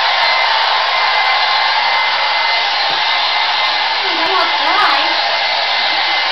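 Handheld hair dryer blowing steadily, with a thin steady whine. About four seconds in, the dog being dried lets out a few short cries that rise and fall in pitch.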